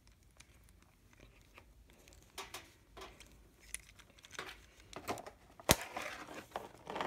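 Plastic Bakugan toy parts being handled and pushed into place: scattered small clicks and rustles, with one sharp snap near the end.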